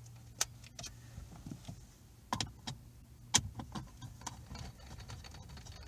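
Irregular light clicks and ticks of a 9/32 nut driver and fingers working screws out of the plastic centre-console trim, with a sharper knock about three and a half seconds in. A low steady hum runs underneath.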